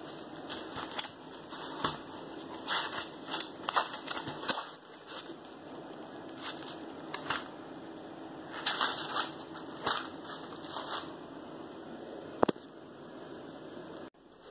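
Handling noise of a cardboard pasta box: irregular crackling and rustling in two clusters, with a single sharp click near the end.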